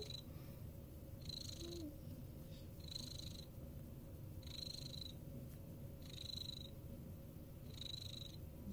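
Domestic cat purring steadily while being stroked, with a faint hiss recurring about every second and a half.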